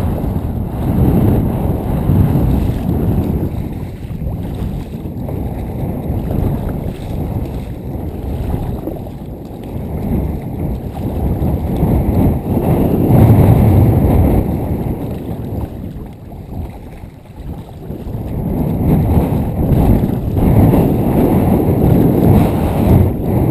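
Strong gusting wind buffeting the GoPro's microphone in a loud, low rumble that swells and eases, over choppy river waves slapping and splashing against a plastic kayak's hull.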